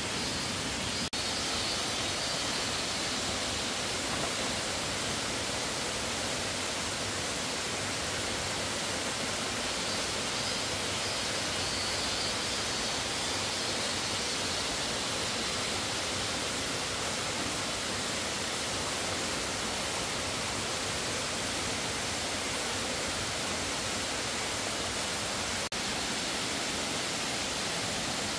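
Steady, even rushing noise with no distinct events. It dips for an instant about a second in and again near the end.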